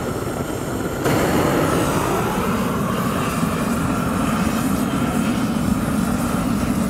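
GrillGun propane torch blasting its flame onto charcoal briquettes to light them: a steady rush of burning gas, louder from about a second in.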